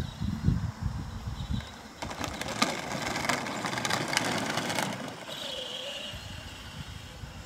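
12-volt battery-powered ride-on toy ATV driving past, its hard plastic wheels rattling and crackling over the concrete path for about three seconds. A thinner, fainter whine follows as it moves off.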